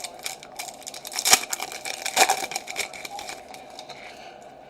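Foil trading-card pack being torn open and crinkled: a run of crackles, with two sharper tears about a second and two seconds in, going quieter near the end.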